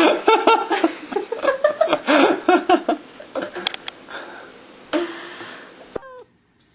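People's voices, talking in short, choppy bursts, fading about three seconds in; the sound cuts off abruptly near the end.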